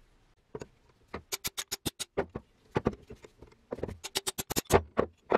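Sharp metallic clicks in quick runs of several a second, with a faint ring, as a tool works on the rusted crank handle and worm shaft of an antique Universal food chopper to free the seized crank.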